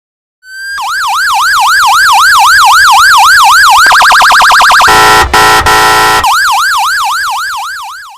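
Electronic police siren: it starts with a rising tone, then sweeps up and down about four times a second. About four seconds in it switches to a much faster warble, then a harsh steady horn tone with two brief breaks, before going back to the slower sweep and fading near the end.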